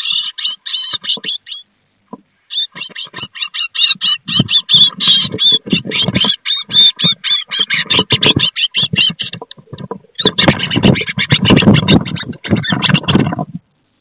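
Two great tits fighting inside a nest box: rapid chattering calls in quick pulses, with a short break about two seconds in, over loud wing-flapping and scuffling. The scuffling is heaviest near the end, then everything stops abruptly.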